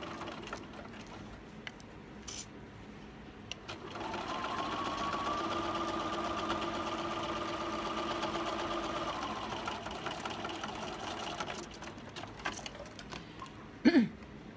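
Computerized domestic sewing machine topstitching close to the edge of a fabric flap. Its motor starts about four seconds in and runs at a steady speed for about eight seconds, then stops. A short loud sound that falls in pitch comes near the end.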